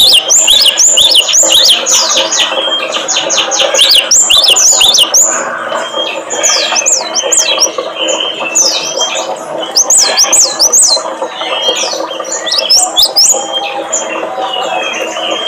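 Small songbirds chirping and twittering fast, many quick high notes sweeping up and down and overlapping one another, with a steady low hum beneath.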